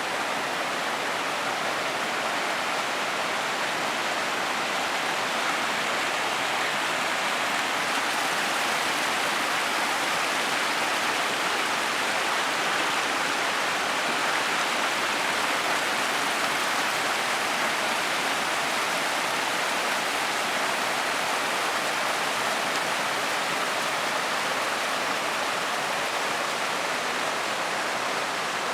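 Running water of a mountain stream rushing steadily and evenly.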